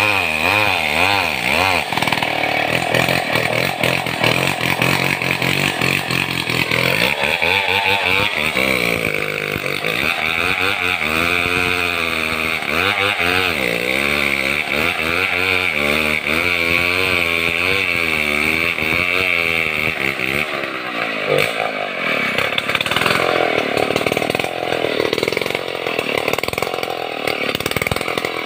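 Chainsaw running at cutting revs, ripping lengthwise along a log of madang wood to saw it into 5×10 beams. The engine note wavers up and down as the chain bites and eases through the cut.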